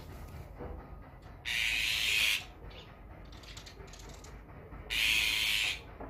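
Two harsh, rasping bird calls, each just under a second long, about three and a half seconds apart.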